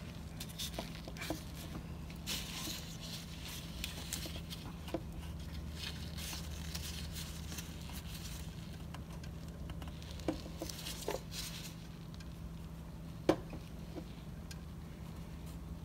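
Rustling, scraping and scattered light clicks of a gloved hand and a serpentine belt tool working against the belt tensioner and engine parts, with one sharp knock about 13 seconds in. A steady low hum runs underneath.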